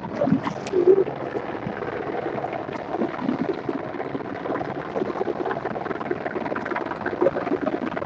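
Water lapping and gurgling against the hull of a small boat on choppy water, an uneven run of small splashes.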